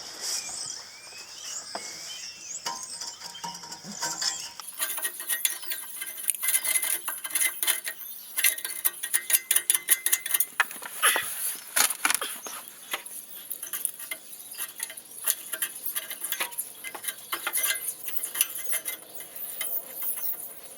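Screwdriver scraping and picking the crumbled remains of a wire-mesh exhaust gasket off the exhaust flange: many quick, irregular scrapes and clicks of metal on metal, busier from about four seconds in.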